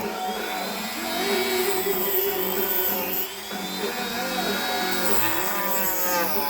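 Dremel rotary tool running while carving, a high motor whine whose pitch sags and rises as the bit loads up and frees.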